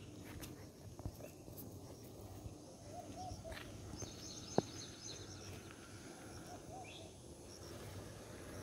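Faint outdoor background with birds: a short three-part call repeats every few seconds, high twittering comes in briefly near the middle, and one sharp click sounds about halfway through.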